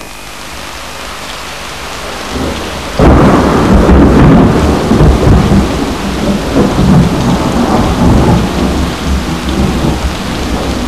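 Recorded rain and thunderstorm effect opening a song about rain: a steady rain hiss that builds, then a loud thunderclap about three seconds in whose rumble rolls on slowly under the rain.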